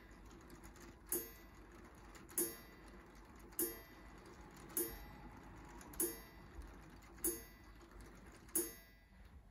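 LEGO Technic pendulum clock's striking mechanism sounding the hour. Seven evenly spaced strikes come about one every 1.2 seconds, each a sharp hit with a short ringing tone.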